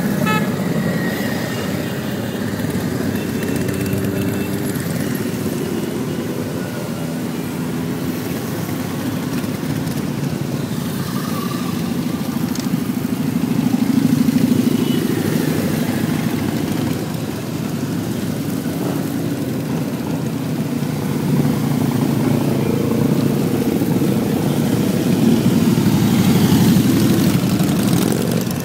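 Motorcycle engine running under way, its pitch drifting up and down with the throttle, swelling louder around the middle and again near the end.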